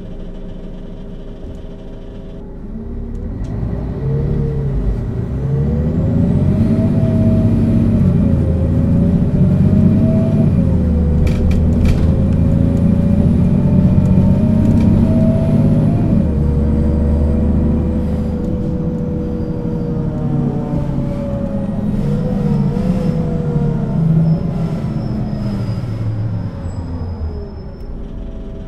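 Mercedes-Benz O 530 G Citaro articulated bus pulling away and accelerating hard: its diesel engine rises from idle to a loud drone a few seconds in, with a gearbox whine that climbs and drops back at each change of its ZF automatic transmission. About two-thirds of the way through it eases off, picks up briefly, then falls back near the end.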